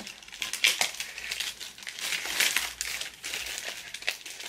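Plastic packaging and bubble wrap crinkling and rustling in irregular crackles as a mailed hardback book is pulled out of its wrapping.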